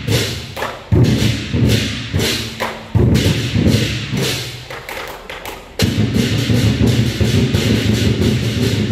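Lion dance percussion: a big Chinese drum beating with clashing cymbals. Heavy strikes land about one and three seconds in, then it settles into a dense, continuous pounding rhythm from about six seconds in.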